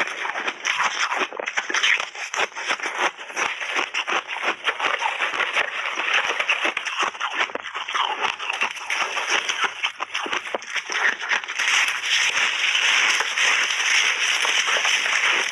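Frozen ice chips and a block of layered shaved ice being bitten and chewed: a dense run of crisp cracks and crackles that grows thicker and louder near the end.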